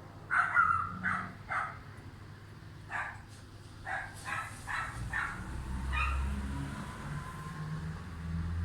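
A dog barking, about nine short barks in the first five seconds, some in quick runs. From about five seconds in, a low rumble swells and holds under it.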